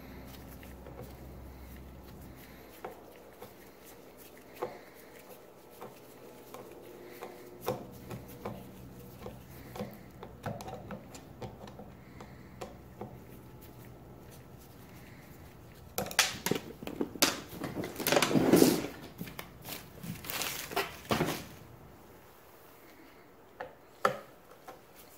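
Small clicks and scrapes of a screwdriver and gloved hands working at the screws on a jet ski's handlebar steering pole. A louder stretch of rattling and rubbing comes a little past the middle, and two sharp clicks come near the end.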